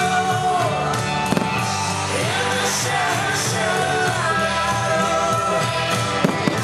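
A pop song: a singer's voice over instruments, with two sharp cracks near the end.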